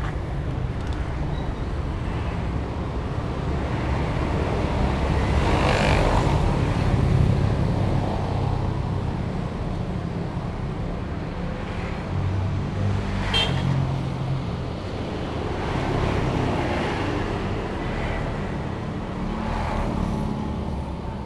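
Road traffic: a steady low rumble with several vehicles passing one after another.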